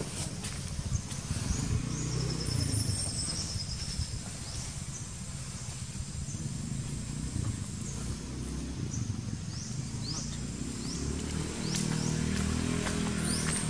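Outdoor ambience: a steady low rumble that grows louder near the end, with short high chirps repeating throughout and a thin high trill from about two to four and a half seconds in.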